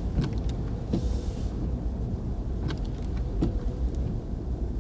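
Inside a moving car's cabin: the steady low rumble of the car driving on the road, with a few light knocks at uneven intervals and a brief hiss about a second in.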